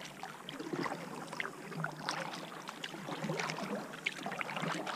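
Kayak paddle strokes in calm water: the blades dip and pull with small, irregular splashes and drips.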